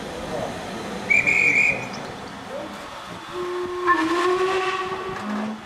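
A guard's whistle gives one short shrill blast about a second in. Then a steam locomotive's whistle sounds one long call of about two seconds, over a steady hiss of steam. This is the right-away signal and the engine's answer as the train gets ready to leave the station.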